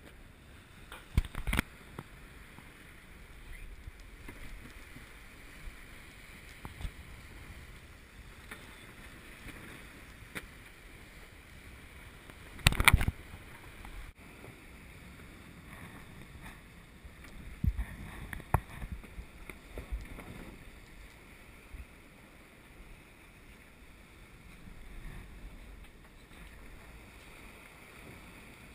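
A sailing yacht under way: steady rush of water along the hull and wind, broken by a few sharp knocks, the loudest about halfway through.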